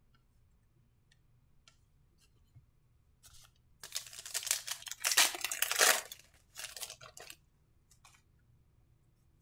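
Foil trading-card pack wrapper being torn open and crinkled by hand, loudest in the middle, after a few faint clicks.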